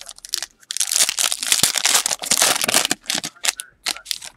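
Foil wrapper of a Panini Prizm basketball hobby pack being torn open: a dense crackling rip lasting about two seconds, then scattered crinkles as the cards are pulled out of the wrapper.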